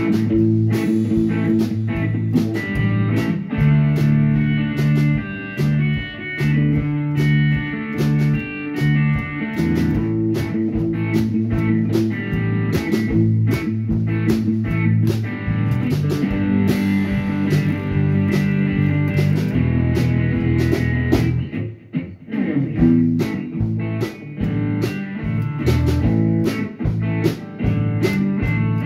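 A band playing an instrumental blues-rock tune. An electric bass playing close by carries the low notes over guitar, and drum hits keep a steady beat. The band drops out briefly about three-quarters of the way through.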